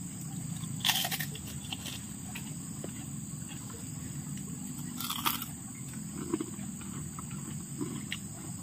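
Two short slurps as river snails (langkitang) are sucked out of their shells, about a second in and about five seconds in. Crickets chirr steadily throughout.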